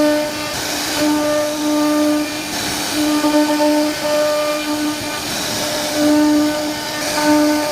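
CNC router spindle whining at a steady pitch as its bit carves a wooden door panel, over a constant hiss of cutting noise. The whine comes and goes every second or so.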